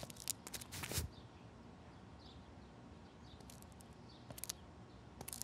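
Scattered light clicks and knocks over quiet room tone, the loudest about a second in, with a few faint high chirps.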